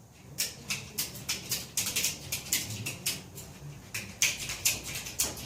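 Sharp, irregular clicks and taps, about two to four a second, from working a mounting pin through the bracket of a tractor loader until it seats.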